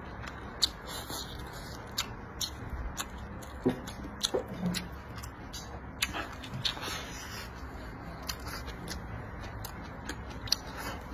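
Close-up eating sounds: a man chewing and smacking his mouth, with irregular sharp clicks of chopsticks on a plate.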